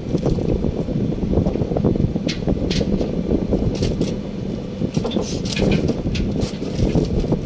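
Steady, uneven low rumble, with scattered short clicks and rustles from hands working on a fitting, mostly in the middle and second half.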